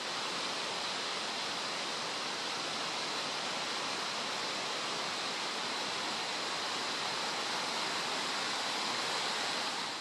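Shallow mountain stream rushing and splashing over rocks in a steady white-water hiss, with a faint steady high tone under it.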